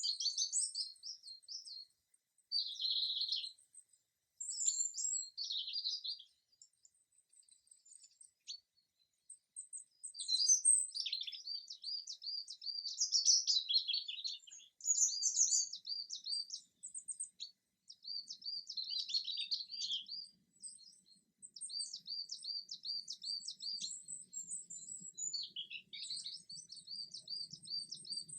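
Songbirds singing: phrases of quick, high repeated chirps and trills, broken by short pauses.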